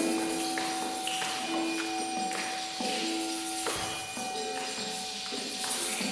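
Several small percussion instruments played freely together: jingling bells and tambourine-like shaking over held, ringing tones, with new notes struck every second or so.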